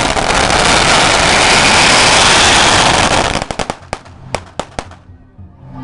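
A string of firecrackers going off in a rapid, loud continuous crackle that, a little over three seconds in, thins to a dozen or so scattered single bangs before dying away.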